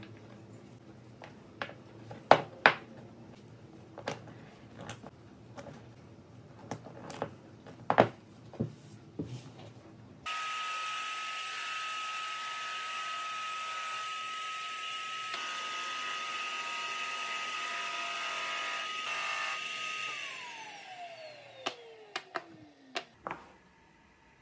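Wooden blocks clicking and knocking as they are handled on a workbench. About ten seconds in, a conveyor drum sander starts to run with a steady whine over a hiss; near the end the whine falls steadily in pitch as the machine winds down, followed by a few light knocks.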